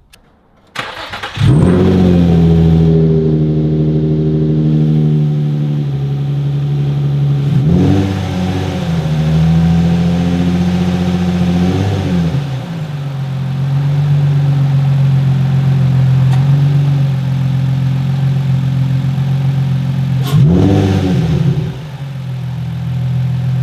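Nissan 350Z's VQ35DE V6 cranking and catching about a second in, then settling into a steady idle. The throttle is blipped three times, each a brief rev up and back down.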